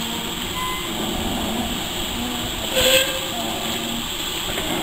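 A Great Western pannier tank steam locomotive and a coupled diesel shunter rolling slowly along, with steady running noise and a brief burst of steam hiss about three seconds in.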